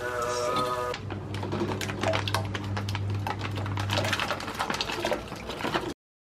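Background music for about a second, then food cooking in a pot on the stove: rapid crackling and popping over a low hum. It cuts off abruptly near the end.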